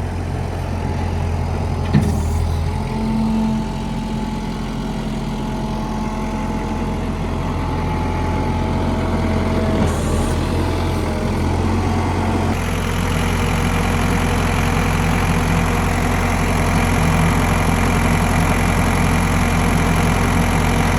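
2005 Thomas skid steer's Kubota diesel engine running steadily. There is a sharp click about two seconds in, and about twelve seconds in the engine note changes and runs a little louder from then on.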